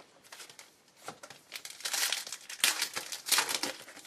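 Foil wrapper of a 2010 Contenders basketball card pack crinkling as it is handled and torn open, with a dense crackle that gets louder in the second half.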